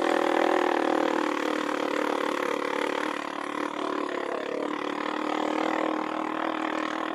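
A vehicle's engine running steadily at a constant speed, a little quieter from about three seconds in.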